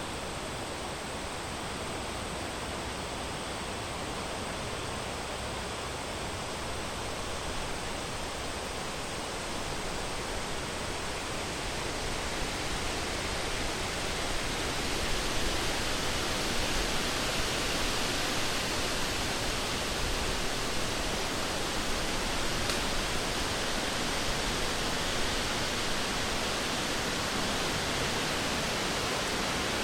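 Wind blowing through a forest, a steady rushing that swells louder about halfway through and stays up.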